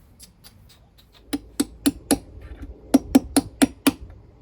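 Hammer strikes driving a new drum bearing into a washing machine's bearing housing: a few light taps, then four sharp blows about four a second, a short pause, and five more at the same pace.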